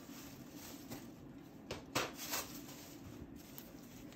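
Light clicks and knocks of painting supplies being handled, a few close together about two seconds in, over a faint steady hum.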